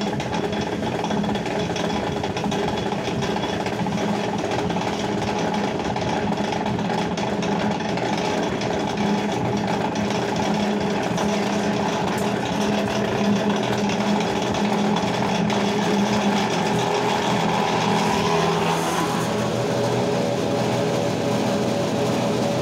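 Motor-driven wet dhoop cutting machine running, its screw auger pushing incense dough through: a steady mechanical hum with a rattle. The hum shifts to a lower, different tone about nineteen seconds in.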